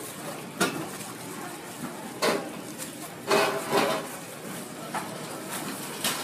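About four sharp knocks and clinks on a metal tray, with rustling, as twisted donuts are rolled in sugar and dropped into a plastic bag.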